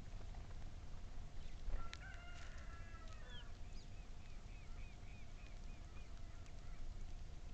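A rooster crows once, a single drawn-out crow of about a second and a half. It is followed by another bird's quick run of short, repeated chirps, about four a second, over a faint steady hum.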